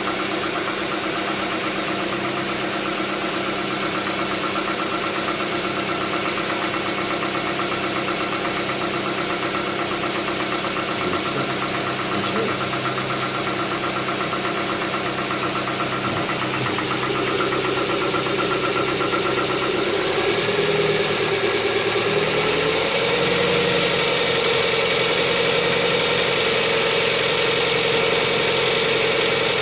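Hyundai Tucson 2.0 16-valve four-cylinder engine idling with a rapid ticking noise, the noise it makes after a cold start and loses once warmed up, which a mechanic puts down to the hydraulic lifters. About two-thirds of the way through, the engine speed rises slightly and it gets a little louder, then holds steady.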